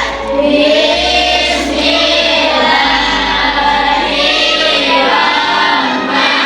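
A group of voices singing together in unison, with children's and women's voices.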